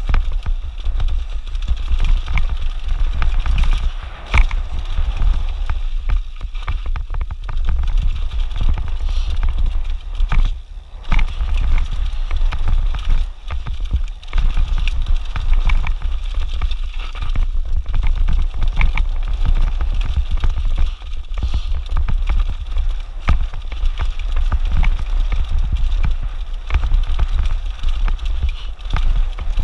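Mountain bike rolling fast over a rocky trail: tyres crunching over loose rock and the bike clattering with many quick, irregular knocks, over a steady low rumble.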